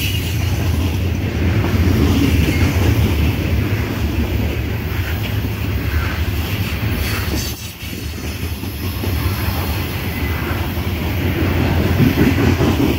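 Loaded coal hopper cars of a freight train rolling past: a steady, heavy rumble of steel wheels on the rails, with a short dip in loudness a little past the middle.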